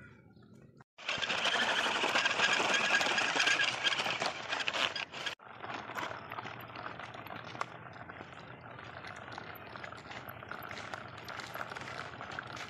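Plastic toy tractor and loaded trolley rolling over sandy, gritty ground: a dense rattling and grinding of plastic wheels on grit that starts abruptly about a second in, is loudest for the next few seconds, then goes on a little quieter with scattered clicks.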